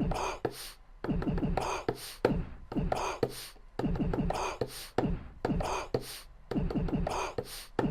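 A crude beat made of sampled coughs, sniffs and snot sounds, played as a repeating riff: cough hits pitched into falling notes, with sharp hissy sniff 'shaker' hits on top. It is played by hand without a metronome, so the timing is loose.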